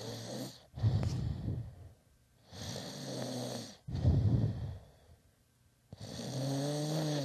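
A sleeping man snoring loudly, with about three slow breaths, each a buzzing snore followed by a breathy second half.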